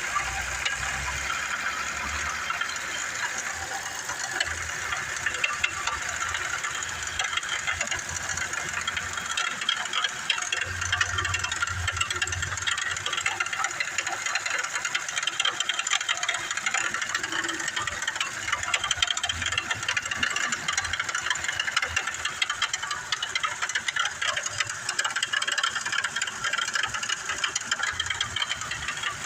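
Chevrolet Onix engine running with a fast, steady rattling tick over the engine sound: the strange engine noise the owner is showing.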